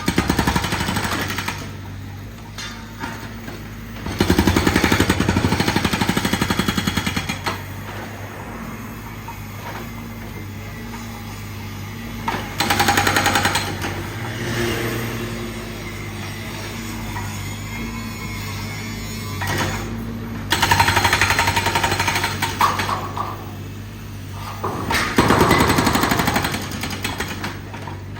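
Jackhammer (pavement breaker) hammering in several bursts of a few seconds each, with a machine's engine running steadily in between.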